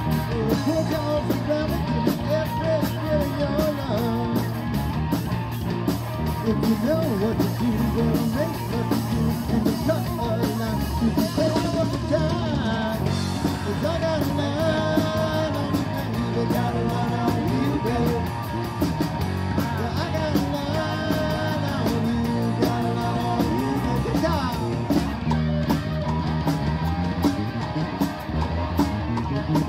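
Live rock band playing through a PA: electric guitars, bass guitar and a drum kit keeping a steady beat.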